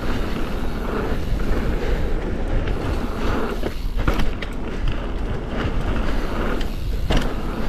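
Mountain bike riding along a dirt trail: wind buffeting on the camera microphone and tyres rolling over the ground, with a few sharp knocks and rattles from the bike going over bumps, about two and a half, four and seven seconds in.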